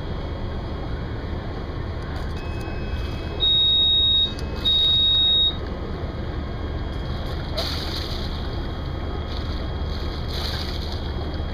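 Sailing yacht's inboard diesel engine running low and steady, with two loud high-pitched electronic beeps, each about a second long, a few seconds in, from the helm's control console.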